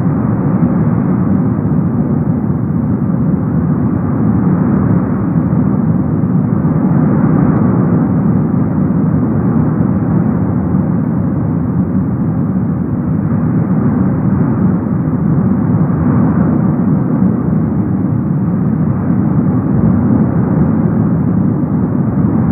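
Cumbre Vieja's lava fountain: a loud, steady roar of gas and lava jetting from the vent, with no separate blasts.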